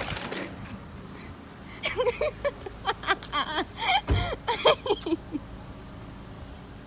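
Voices talking and laughing indistinctly for about three seconds, starting about two seconds in, with a low thump about four seconds in, over a steady low background rumble.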